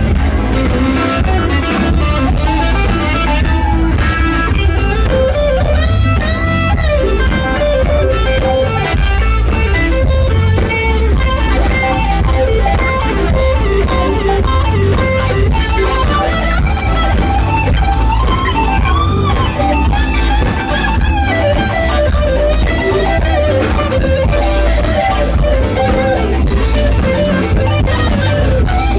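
Live blues-rock band playing: electric guitar with bending, sliding notes over drum kit and electric bass, at a steady loud level.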